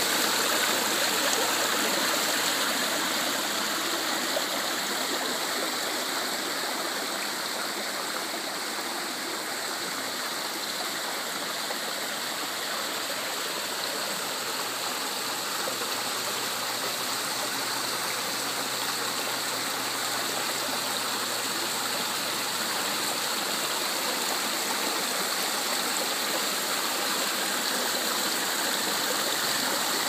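Rock waterfall pouring over a stone ledge into a swimming pool: a steady splashing of falling water.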